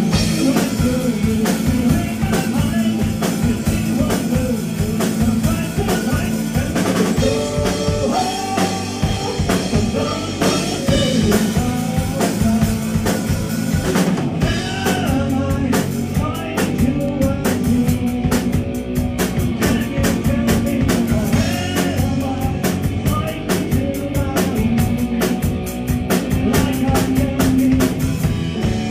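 Live rock band playing electric guitars and a drum kit. The drumming gets busier about halfway through.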